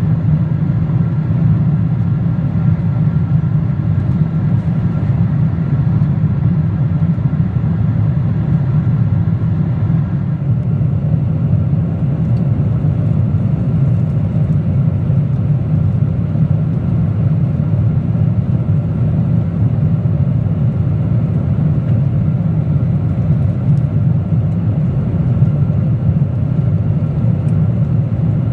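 Steady cabin noise of a Boeing 777-300ER at cruise: an even, low rumble of its GE90-115B engines and the airflow over the fuselage, heard from inside the cabin.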